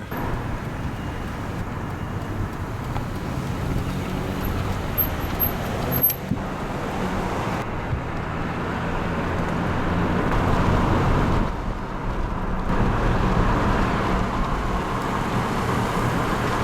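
Steady engine and tyre noise of a car being driven, a little louder about ten seconds in.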